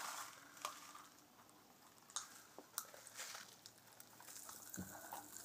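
Pop Rocks popping candy crackling faintly in the mouth: a scatter of small, irregular pops and ticks.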